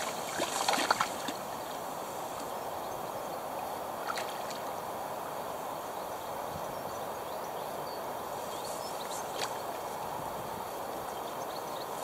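Steady rush of flowing river water. A quick cluster of short clicks and splashy knocks comes about a second in, and single fainter ones follow later.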